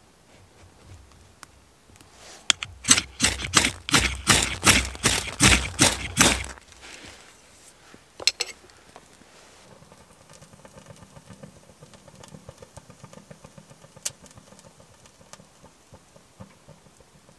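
Ferro rod scraped hard about a dozen times in quick succession, roughly three strokes a second, throwing sparks onto tinder. Later, faint crackling as small kindling catches in a small metal wood stove.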